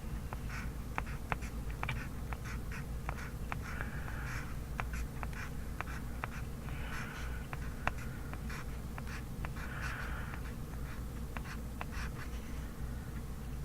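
Pencil writing kanji on paper: scratchy strokes every few seconds and many light, sharp taps of the pencil tip, over a steady low hum.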